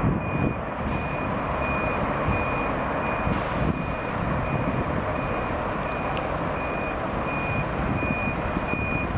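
A bus's reversing alarm beeping in a steady repeating series of high beeps as the bus backs out of its stand, over the continuous rumble of bus engines.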